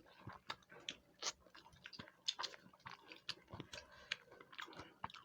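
Close-up chewing and wet mouth clicks of people eating, faint and irregular.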